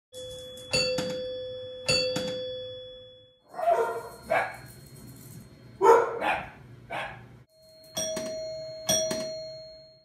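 A two-note ding-dong doorbell chime rings, then a dog barks about five times at the bell, then the two-note chime sounds again near the end.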